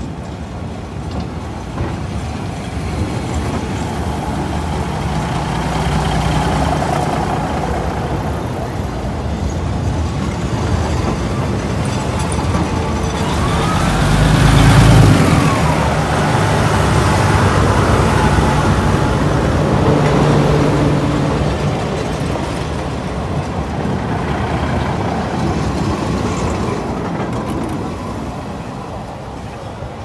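Diesel railcar train with Cummins NTA855-R1 engines, one under each car, running slowly past at close range over a steel truss bridge. The engine drone builds to its loudest about halfway through as the cars go by, then fades near the end.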